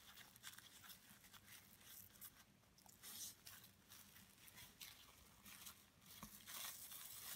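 Faint, irregular crinkling of cling film as hands press pastry through it into a tart tin.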